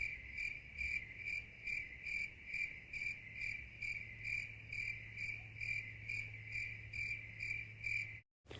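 Cricket chirping in an even, steady rhythm of about three chirps a second, with a faint low hum underneath. It cuts off suddenly near the end.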